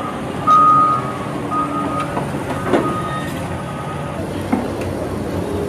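A construction machine's reversing alarm beeps on one steady pitch in an even rhythm, growing fainter and stopping about four seconds in. Underneath is the steady rumble of heavy machinery, with a couple of sharp metal knocks.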